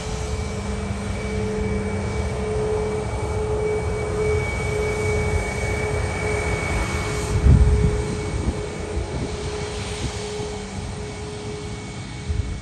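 Jet aircraft engines running with a steady rumble and a steady whine. A short low thump comes about seven and a half seconds in, and a smaller one near the end.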